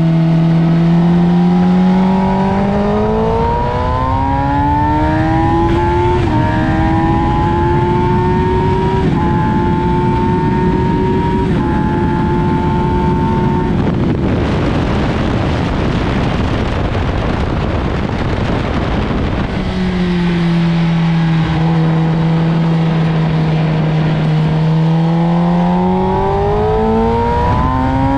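Track-day motorcycle engine holding a steady note, then revving up through the gears with two quick upshifts about six and eleven seconds in. Around the middle the engine note gives way to a loud rushing noise for several seconds. The engine then returns at a steady note and climbs again near the end.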